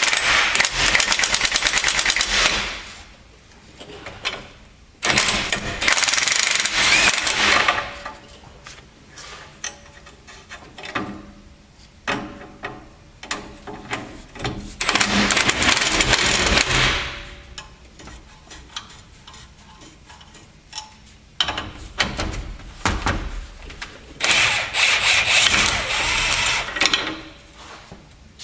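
Impact wrench (rattle gun) running new U-bolt nuts down on a leaf-spring axle in four bursts of two to three seconds each, used lightly just to snug them. Quieter clicks and metal clanks between the bursts.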